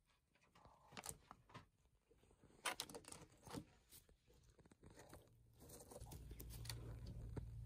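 Faint scattered pecking clicks and rustles of quails feeding in wood-shavings bedding. A low steady hum comes in about six seconds in.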